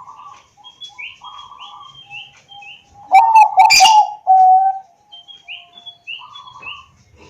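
Zebra dove (Thai-bred perkutut) singing: one loud phrase of three quick cooing notes followed by a longer held coo, about halfway through. Short high chirps from other birds repeat around it.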